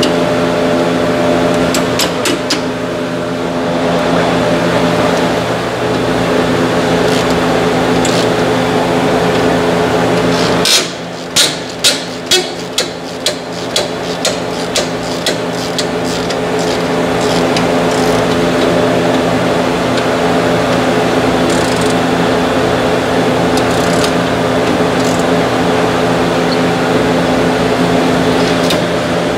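A steady mechanical background hum of several fixed tones, with a run of sharp clicks about eleven seconds in, roughly two a second and fading away over about five seconds, as hand tools work on the car.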